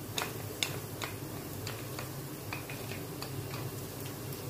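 Chopped garlic starting to fry in hot cooking oil: sparse, irregular small pops and crackles over a low steady hum.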